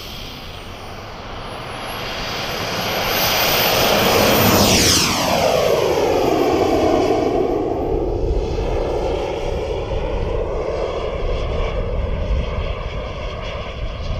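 JetCat turbine of a Krill Avanti S model jet at high power on its takeoff run, growing louder as it approaches. About five seconds in its whine drops sharply in pitch as it passes, then it carries on, a little quieter, as it climbs away.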